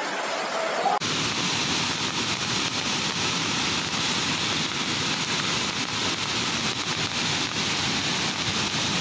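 Steady rush of muddy floodwater: a dense, even noise that starts abruptly about a second in.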